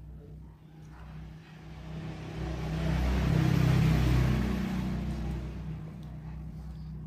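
A motor vehicle passing by: its engine hum and road noise swell over a few seconds, peak in the middle, then fade away.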